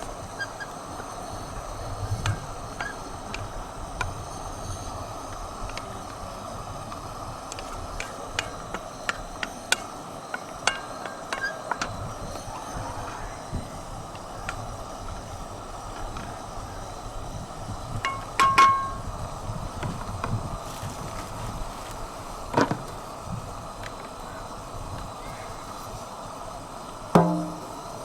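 Background music under a steady hiss, with scattered sharp clicks and knocks throughout and a few louder knocks near the end.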